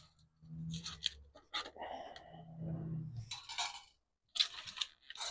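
A metal spatula scraping and clinking against a steel smoker grate as a meatloaf is lifted off. A few light crinkles come from an aluminium foil pan.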